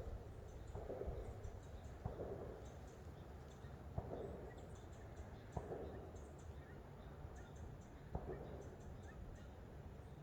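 Distant gunfire from a shooting range: four single sharp shots a couple of seconds apart, faint. Footsteps on the trail go on at about one a second underneath.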